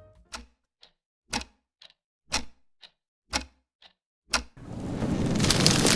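Clock ticking in a slow tick-tock, a strong tick once a second with a softer tock between. About four and a half seconds in, a crackling fire fades in and grows.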